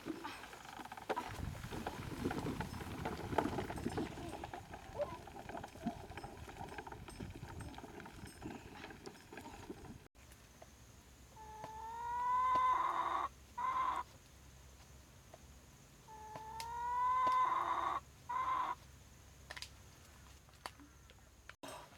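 A rooster crowing twice, about five seconds apart. Each crow rises into a long held note and ends with a short separate note. Before the crows, quieter rustling noises.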